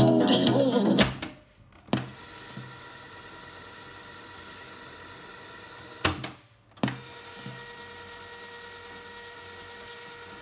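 Sony CFS-3000L boombox cassette deck: music playback cut off by the clunk of a piano-key button about a second in, then key clunks and the steady whir of the cassette mechanism winding the tape at speed. The winding stops with a clunk about six seconds in and starts again a moment later, running to near the end.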